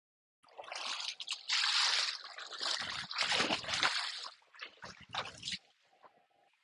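Shallow water sloshing and trickling close to the microphone. It starts about half a second in and is loudest for the next few seconds, then fades.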